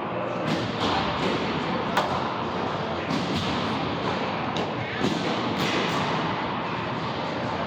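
Game-time crowd and venue noise: a steady wash of indistinct voices and movement, broken by several sharp knocks, the clearest about two seconds in and a cluster around five seconds.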